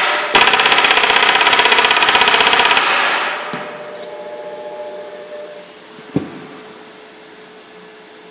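Handheld dot peen marking machine's stylus hammering rapidly into metal, a fast buzzing train of strikes that breaks off briefly just after the start and stops about three seconds in. A faint hum remains, with a click and then a single knock about six seconds in.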